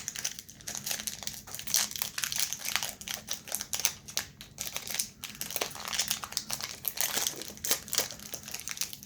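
Foil wrapper of a Pokémon card booster pack crinkling and crackling in a steady, irregular stream as it is opened by hand.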